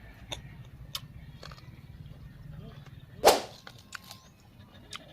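Eating raw vegetables close to the microphone: small wet chewing clicks, then one loud, sharp crunch a little past halfway through, like a bite into a crisp raw vegetable.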